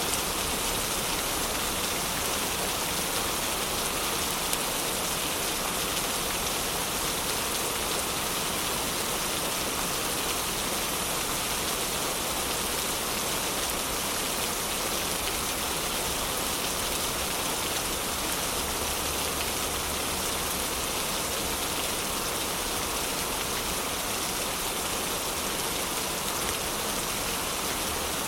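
Heavy rain falling steadily, an even hiss of rain on surfaces.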